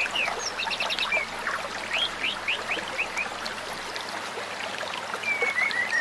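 Shallow stream running over rocks, with bird calls above it: a quick series of short rising chirps in the first half and a twittering call near the end.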